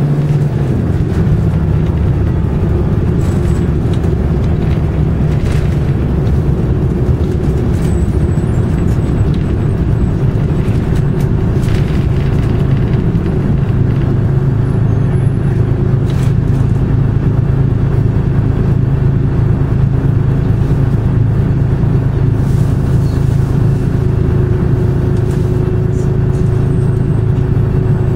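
Detroit Diesel 6V71N two-stroke V6 diesel of a 1982 GMC New Look bus running, heard from inside the passenger cabin as a loud, steady drone, with a few faint rattles and clicks.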